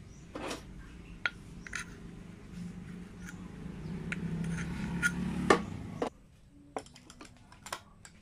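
Light metallic clinks and scrapes of a thin sheet-metal impeller disc being handled, set against a rod and pliers. The loudest clink comes about five and a half seconds in. A low hum underneath builds and then stops abruptly about six seconds in.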